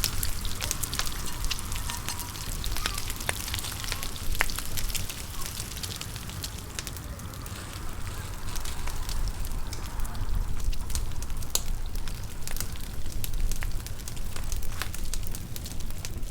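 Wood fire crackling, with many sharp irregular pops over a steady hiss and a low rumble.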